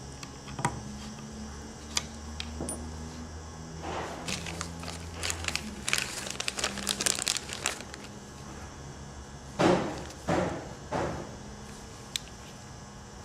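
Handling noises: a few sharp clicks, a stretch of crinkling about four seconds in, then three louder scraping knocks near the ten-second mark.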